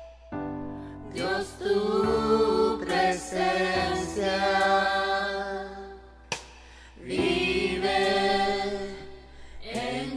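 Several voices singing a slow worship song together over piano and bass, in sung phrases with a short break about six seconds in.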